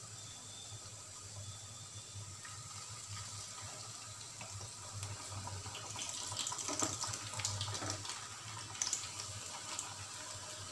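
Water chestnut flour puris deep-frying in hot oil in a wok: a steady sizzle with crackling. It grows louder and busier from about five seconds in, as a second puri goes into the oil and the two are turned with a slotted spoon.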